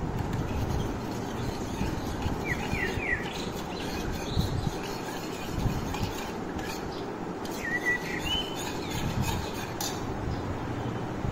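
A steel ladle stirring orange juice with soaked falooda seeds in a steel pot, with a few faint clinks, over a steady background rumble. Short bird chirps come through about two and a half seconds in and again around eight seconds.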